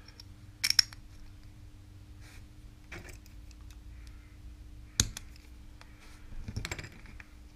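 Small metal parts of a throttle potentiometer clicking and clinking in the hands as it is put back together with a small screwdriver, the sharpest click about five seconds in. A steady low hum runs underneath.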